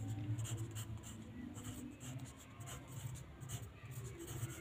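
Pencil writing on graph paper: a run of short, irregular scratching strokes as letters are written out.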